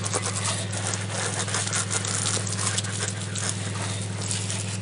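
Pressurised water from a garden hose spraying and spattering against a mountain bike's frame and wheels, over a steady low hum.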